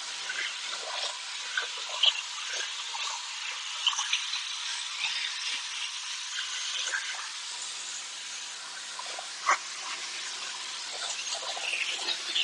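Water from a power washer spraying and rinsing a screen-printing screen: a steady hiss with brief sharper spatters as the spray moves across the mesh.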